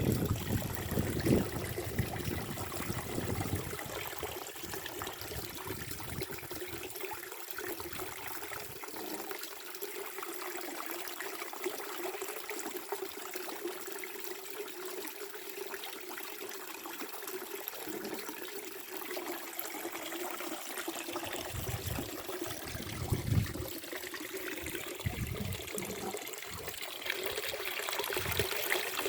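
Spring water trickling steadily from a temple mineral spring, with low rumbles near the start and again near the end.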